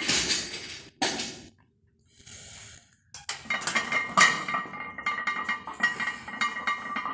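A loaded barbell clanks twice against the squat rack's hooks as it is lifted out. From about three seconds in, its weight plates clink and ring over and over as the bar is walked back out of the rack. A brief hiss comes about two seconds in.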